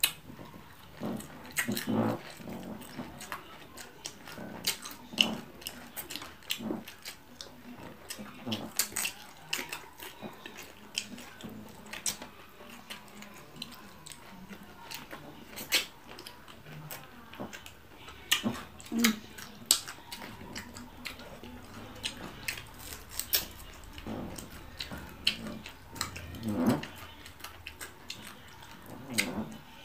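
Close-up eating sounds of chewing fried tilapia and raw vegetables by hand: many irregular lip smacks, mouth clicks and crunches. A few short low vocal sounds come about halfway through and again near the end.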